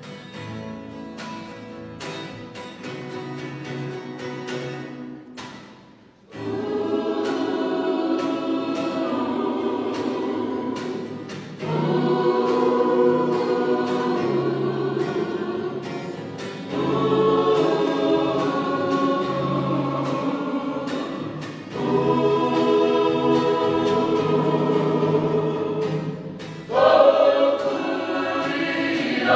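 Choral music: a choir sings long held chords in phrases of about five seconds each. A quieter instrumental opening comes first, and the singing comes in about six seconds in.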